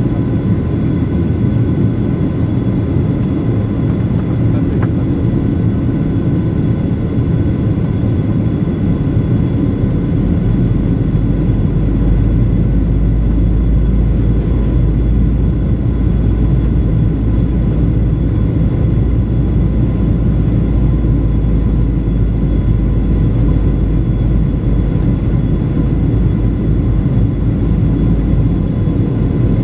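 Steady cabin noise inside a Boeing 737-900 in descent: a deep rumble of airflow and its two CFM56-7B engines, with several steady whining tones above it. The low rumble grows heavier from about ten seconds in and eases again near the end.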